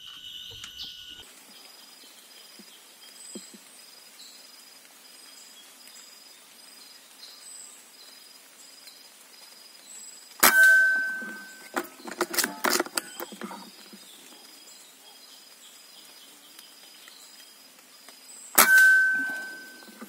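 Two shots from a PCP air rifle, about eight seconds apart, each a sharp crack with a short metallic ring that dies away quickly. A quick burst of rattling clicks follows about a second after the first shot, and faint high chirps repeat in the background.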